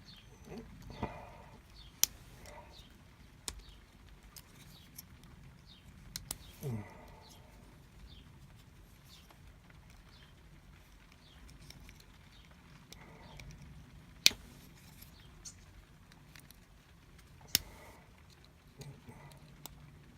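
Scattered sharp metal clicks and light scraping from tools working at the retaining clip of a euro lock cylinder held in a vice, with the clip not coming off. The loudest clicks come about two seconds in, and twice in the last third.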